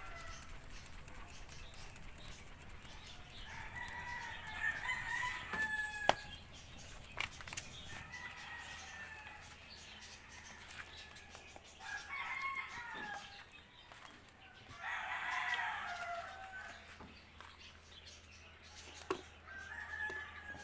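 Chickens calling: four drawn-out, crow-like calls, with a few sharp knocks between them and a low steady hum underneath.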